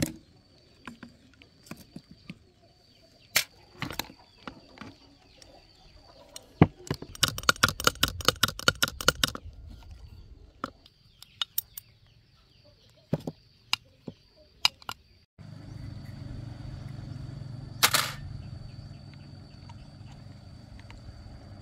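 Metal clicks, clinks and taps of hand tools and steel parts as a 4102 high-pressure pump is taken apart, with a quick run of about two dozen ringing clicks a few seconds in. After a sudden cut about two-thirds through, a steady low hum comes in, with one loud knock; a faint high whine runs through most of it.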